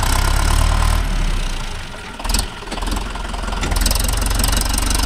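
Mahindra Yuvo Tech+ 585 tractor's diesel engine running steadily, dipping in level for about a second around two seconds in, with a short louder burst in the middle of the dip.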